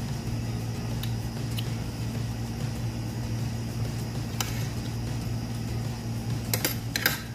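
Steady low machine hum, with a few light clicks of a spoon and chopsticks against a ceramic plate and a quick cluster of louder clinks near the end.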